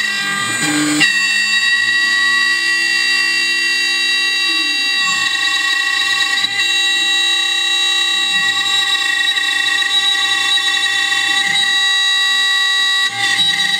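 CNC wood router spindle running at speed with an end mill cutting plywood: a steady high-pitched whine, with lower tones that dip and rise now and then as the machine moves along the cut.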